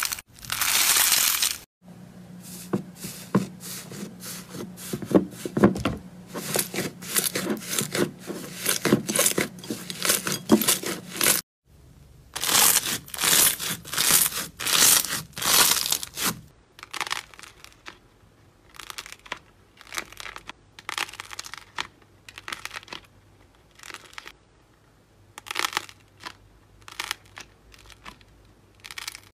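Slime being squeezed and poked by hand, giving runs of crackling, popping clicks. It comes in several short segments with abrupt cuts between them, the crackling thinning to scattered pops in the last part.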